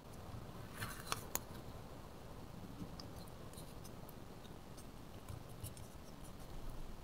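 Faint handling of a plastic toy mould and play dough: a few sharp plastic clicks about a second in, then scattered soft ticks and taps as the dough is pressed onto the mould.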